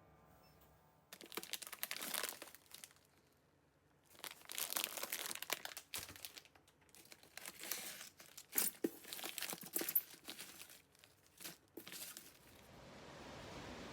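Packaging crinkling and tearing as it is unwrapped by hand, in several bouts with short pauses between them.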